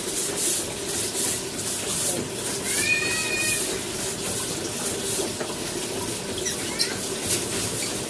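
A brush scrubbing a cage with water in regular strokes. About three seconds in there is one short, high-pitched animal call.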